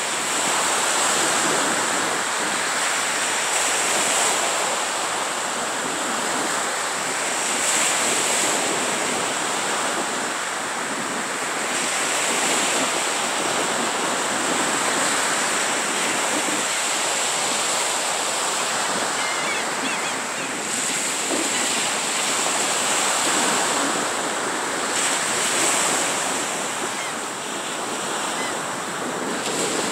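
Small Gulf of Mexico surf breaking and washing up the sand, a steady wash of water that swells and eases every few seconds as each wave comes in.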